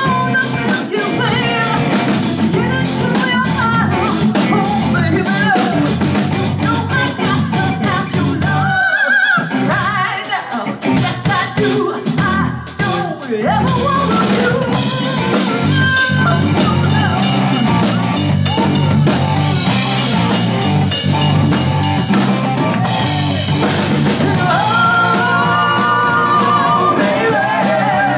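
Live rock and soul band playing: drum kit, electric guitar and electric bass, with a woman singing. A few seconds in the beat and low end briefly thin out, then the full band comes back in.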